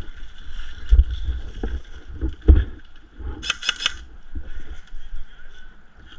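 Airsoft rifle firing one short, rapid full-auto burst a little past halfway, among dull thumps of gear and movement.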